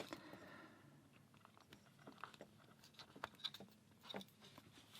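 Near silence, with a few faint, short clicks and taps scattered through it.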